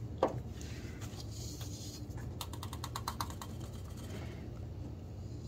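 Ratchet wrench clicking in a quick even run of about ten clicks, roughly halfway in, after a single sharp click near the start.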